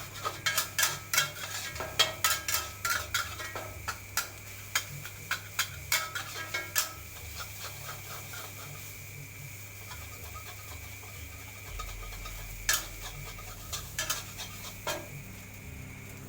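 Metal spatula clanking and scraping against a wok while fried rice is stirred, quick repeated strikes for about seven seconds, then only a few scattered clanks.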